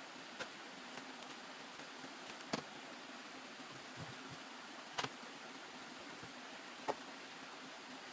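A few short, sharp knocks or snaps, four in all and spread out, over a steady background hiss.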